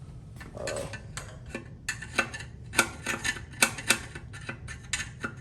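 A metal hand tool scraping and clinking against a welded metal intake while the weld is cleaned up: irregular sharp metallic clicks and scrapes, coming faster and louder from about two seconds in.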